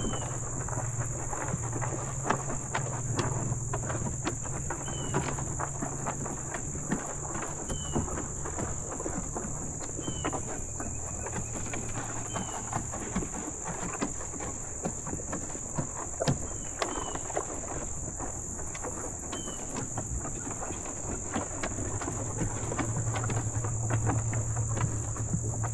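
Cows eating sweet feed at a trough: irregular crunching, clicking and knocking of chewing and muzzles in the feed. A steady high insect drone runs underneath, with a few short chirps from a bird.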